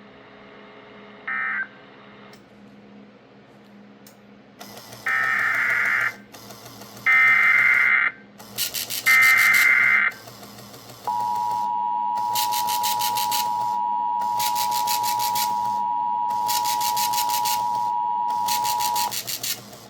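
Emergency Alert System signal on NOAA Weather Radio. Three harsh, warbling bursts of digital header data, each about a second long, are followed by the steady two-tone attention signal, held for about eight seconds, which announces a new warning.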